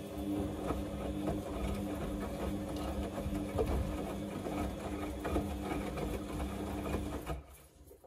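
Samsung front-loading washing machine drum turning during a 40°C wash: a steady motor hum with the laundry tumbling and knocking inside. It stops about seven seconds in as the drum pauses.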